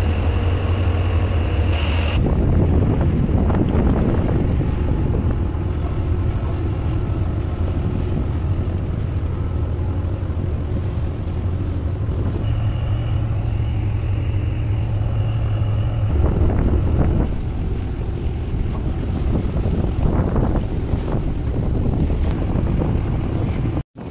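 Tugboat's diesel engines running steadily, a deep hum with water churning along the hull. A thin high whine comes in twice, briefly.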